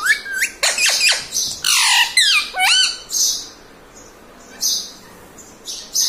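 Indian ringneck parakeet calling: a quick run of whistled chirps and squawks, some gliding up in pitch, for about three seconds, then three short raspy bursts spaced out over the rest.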